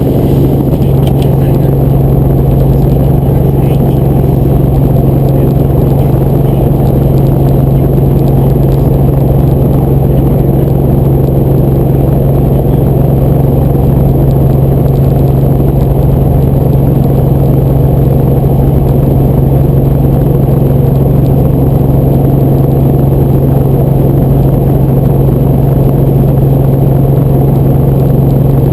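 Helicopter running with a loud, steady drone and a strong low hum that does not change.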